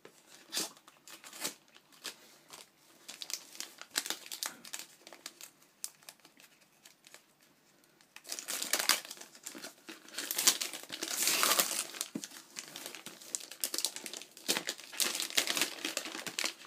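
Gift packaging being torn open and crumpled by hand: scattered crinkles at first, then denser, louder crackling and tearing from about halfway through.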